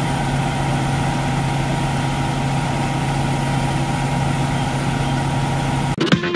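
Fire engines' diesel engines running steadily at the scene, a constant low drone with a steady higher hum over it. About six seconds in it cuts off and electronic music starts.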